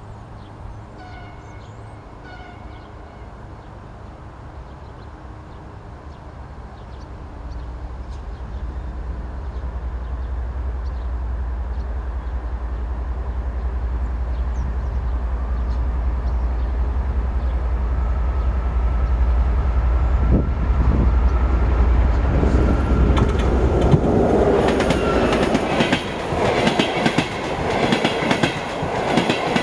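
A train approaching and passing: a low rumble builds steadily for about fifteen seconds, then the wheels clatter over the rail joints in quick repeated knocks as the cars go by.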